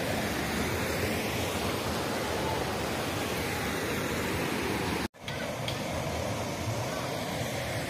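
Steady rushing of a shallow rocky stream and small cascade, water running over stones. The sound breaks off for an instant about five seconds in, then resumes.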